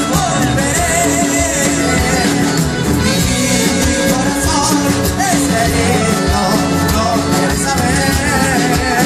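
Live cumbia band playing: a male voice sings over acoustic guitar, electric bass and drums.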